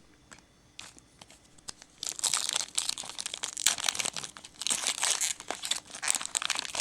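A trading card pack's wrapper being torn open and crinkled by hand, starting about two seconds in after a few light clicks, as the next pack of football cards is opened.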